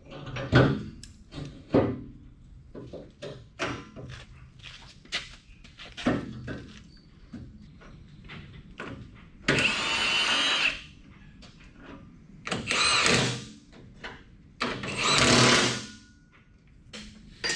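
Metal clanks and knocks as the pumping unit's saddle bearing is worked into place, then a hand-held cordless power tool runs in three bursts of about a second each, driving the bolts that fasten it.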